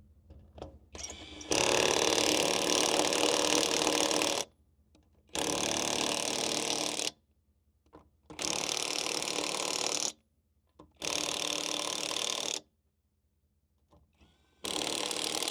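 DECERK 21-volt cordless impact wrench hammering on wheel lug nuts in five separate bursts, one per nut, with short pauses between. The first burst is the longest and loudest at about three seconds, the others about a second and a half to two seconds each.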